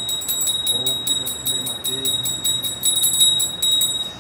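Small brass hand bell (puja ghanti) rung rapidly and without a break for the aarti, a bright high ringing made of quick strokes. It stops near the end.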